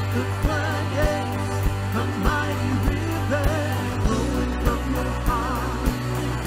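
Live band playing a contemporary worship song: a woman sings the lead over electric guitars, bass and a steady beat of about two hits a second.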